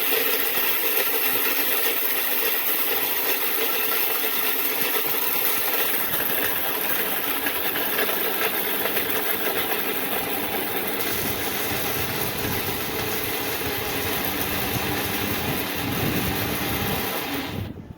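Luxer Laxmi 750-watt mixer grinder's motor running, a steady loud whirring that stops suddenly near the end.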